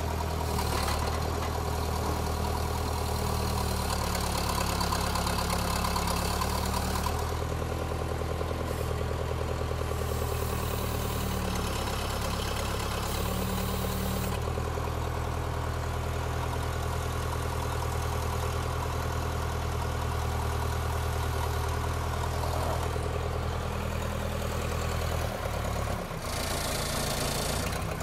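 Case 580E backhoe's four-cylinder diesel engine running steadily, its note shifting for several seconds while the backhoe's hydraulic control levers are worked, with a brief dip near the end.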